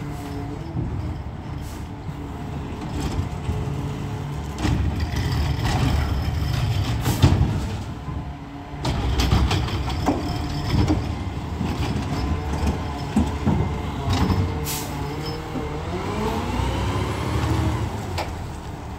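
Peterbilt 520 McNeilus ZR garbage truck running close by, its engine rumbling steadily. Several sudden sharp sounds are heard, and a rising whine comes near the end.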